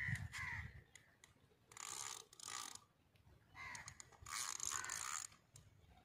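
Crows cawing: harsh calls in two pairs, with fainter shorter calls between them.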